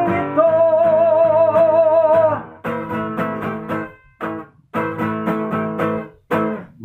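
A man sings one long held note with vibrato over a strummed acoustic guitar. About two seconds in the voice stops and the guitar strums on alone, with two short breaks.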